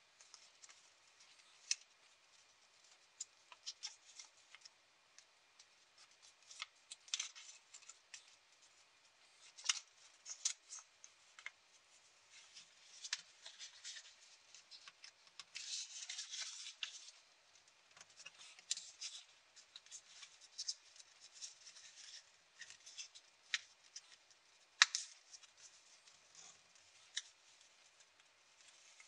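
A sheet of origami paper being folded and creased by hand, making scattered crisp crackles and rustles, with a longer rustle about halfway through.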